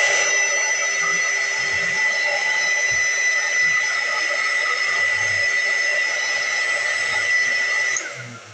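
Handheld hot-air blower running steadily, a high motor whine over rushing air, cutting off near the end with its pitch dropping as it winds down. It is heating a plastic model part to soften it for bending.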